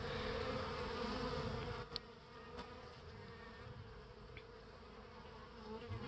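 Honey bees buzzing in a steady hum at a hive entrance crowded with robber bees; the buzzing and flying activity are a sign of a hive being robbed. The hum drops in level about two seconds in.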